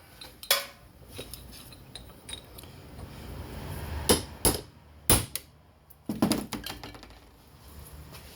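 Hammer striking a chisel set against the scored steel race of a chainsaw crankshaft bearing: several sharp metallic blows spread through, with a quick cluster near the end, cracking a chunk off the race.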